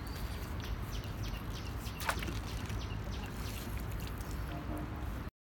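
Water sloshing and dripping as a carp is let out of a landing net back into the pond, with one sharper splash about two seconds in, over a steady low rumble. The sound cuts off suddenly near the end.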